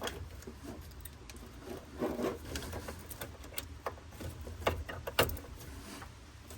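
Scattered small clicks and rattles of hands handling a test light and wire during car electrical work, over a low steady rumble.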